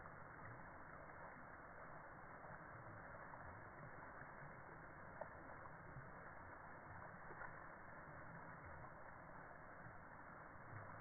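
Faint, steady rush of water running down a concrete gutter, slowed down with the slow-motion footage so it sounds like a low, dull hiss.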